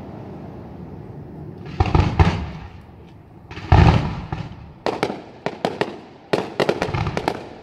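Aerial fireworks shells bursting: a low rumble at first, then heavy bangs about two seconds in and again near four seconds, followed by a quick string of sharp reports.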